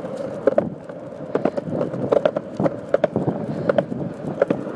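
Skateboard wheels rolling over a concrete sidewalk while a dog on a leash pulls the rider, a steady rumble with many irregular sharp clicks and knocks.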